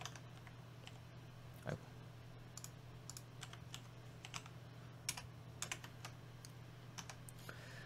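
Computer keyboard typing: irregular, separate keystroke clicks as a short word is keyed in, over a steady low hum, with one brief low sound about two seconds in.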